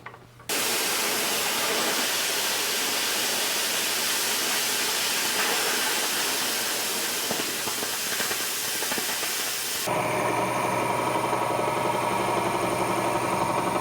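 A loud, even hiss of rushing gas or air starts abruptly about half a second in. Near ten seconds it gives way abruptly to a steady machine hum with several fixed tones, including a high whine.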